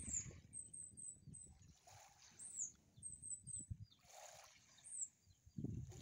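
Small birds chirping with high, thin calls, several in quick runs of three, over faint low wind noise on the microphone that picks up again near the end.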